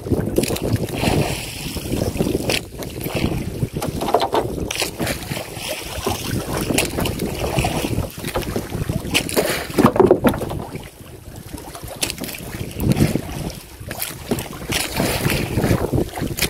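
Wind buffeting the microphone in irregular gusts over water splashing around the hull of a small outrigger canoe at sea.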